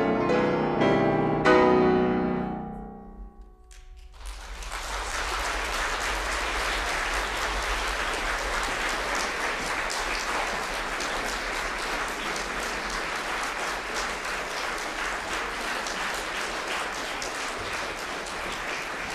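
Two grand pianos strike the last chords of a piece together, the sound ringing away over about three seconds. After a brief hush, an audience breaks into steady applause.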